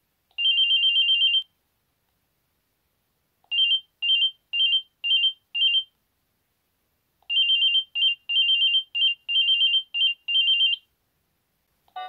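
Built-in electronic ringer of a Hitachi au C309H mobile phone (2000) playing its preset ring patterns. A high-pitched, rapid two-tone warble comes first as one burst of about a second, then as five short bursts, then as a longer run of short and long bursts.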